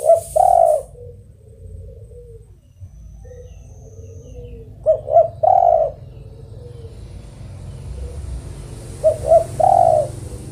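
Spotted dove (tekukur) cooing: three phrases about four and a half seconds apart, each made of two or three short coos and then a longer final coo.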